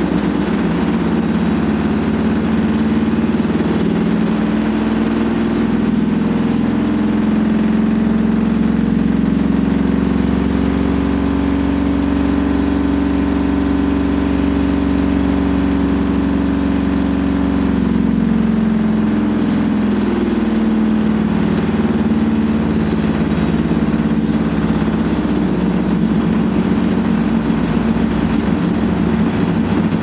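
Hotpoint Aquarius WMA58 washing machine spinning with a loud, continuous drone of several pitches that drift and settle through the middle. The drone comes from the drum bearings, which are very badly worn.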